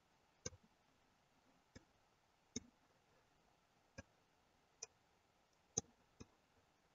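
Computer mouse clicking: about seven separate, faint clicks at irregular intervals, with near silence between.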